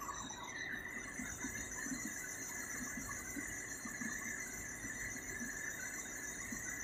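Side-boom pipelayers lowering a steel gas pipeline into a trench on roller cradles: a steady high whine over a low machinery rumble.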